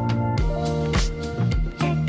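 Background music with a steady drum beat and sustained instrument notes.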